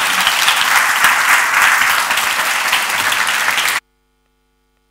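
Audience applauding, a dense patter of many hands clapping. The applause cuts off suddenly about four seconds in, leaving near silence.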